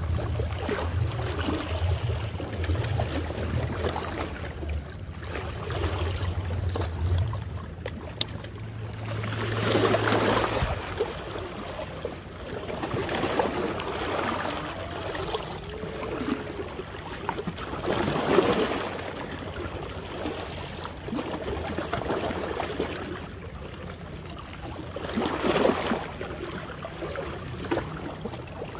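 Small sea waves lapping and splashing against shoreline rocks, swelling and fading every several seconds. A low steady hum runs under it for roughly the first ten seconds, then stops.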